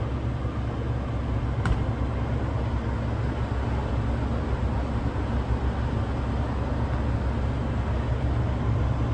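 Semi-truck diesel engine idling steadily close by, a continuous low rumble, with a single sharp click about a second and a half in.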